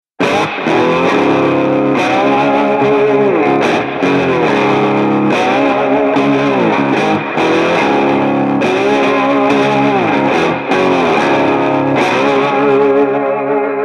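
Background music led by distorted electric guitar, with repeated sliding notes.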